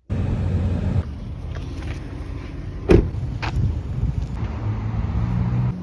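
Low rumble of road traffic outdoors, with a steady engine hum building near the end. A sharp knock comes about three seconds in, and a fainter one half a second later.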